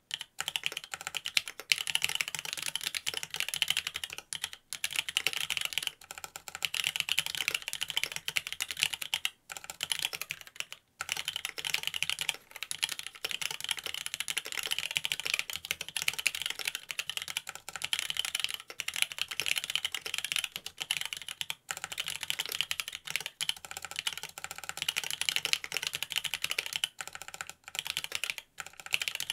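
Steady fast typing on a Mont Cervin custom mechanical keyboard with linear Cherry Wyse Black switches in a carbon fiber plate: a dense run of keystrokes with short pauses every few seconds. The switch stems are unlubricated and the case has no sound-dampening foam.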